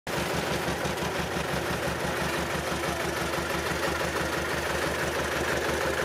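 Small tandem road roller's diesel engine running steadily, with an even, low pulsing beat.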